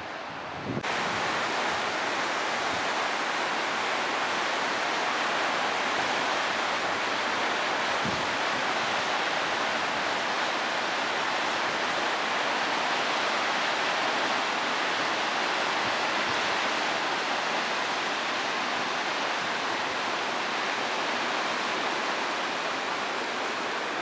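Köprüçay River rapids rushing over boulders: a steady, even rush of whitewater that gets louder about a second in and then holds.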